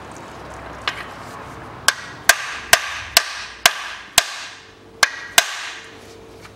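Hammer striking a steel bolt threaded into a car alternator's lower mounting lug: a faint tap, then eight sharp metal-on-metal blows over about three and a half seconds, each with a short ring. The bolt is being driven in to seat the lug's bushing so the alternator slides freely into its bracket on reassembly.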